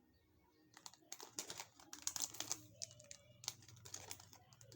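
Plastic wafer wrapper crinkling in the hands as a pack is opened, a run of sharp crackles starting about a second in.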